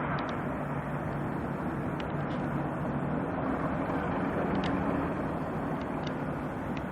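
A train running steadily: a continuous low drone and rumble, with a few brief high ticks scattered through it.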